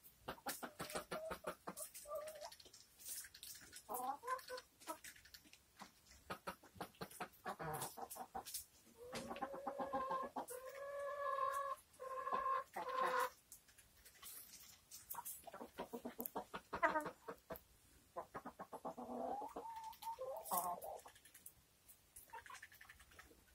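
Domestic hens and a rooster clucking while they feed, over many sharp clicks of pecking. About nine seconds in, a long drawn-out call lasting several seconds stands out as the loudest sound, and a shorter call comes near twenty seconds.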